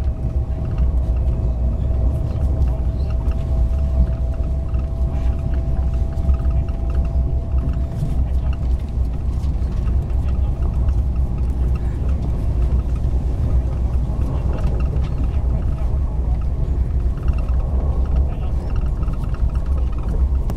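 Steady low rumble of a moving train heard from inside the carriage. A thin steady tone rides over it and fades away about eight seconds in.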